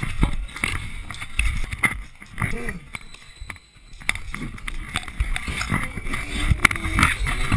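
Futsal being played on a hard indoor court: sharp knocks of the ball being kicked and running footsteps, with players shouting short calls to each other.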